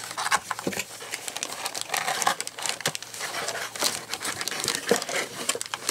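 Packaging rustling and crinkling as items are worked out of a cardboard box, with many irregular small clicks and crackles.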